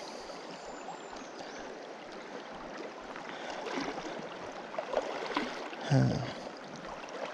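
Shallow river running over a gravel bed, with water sloshing as someone wades through the shallows. A short vocal sound about six seconds in.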